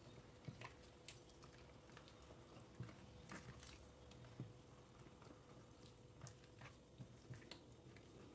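Wooden spoon stirring a wet batter of flour, eggs and oil in a plastic bowl, heard faintly: soft squelches and scattered light taps of the spoon against the bowl.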